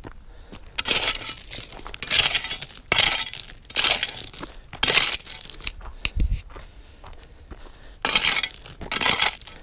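Footsteps on loose, angular rocky gravel: the stones crunch and clink together in short bursts about once a second, with a pause of a few seconds in the middle.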